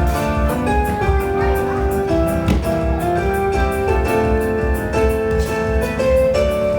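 Music: a melody of held notes over a steady beat.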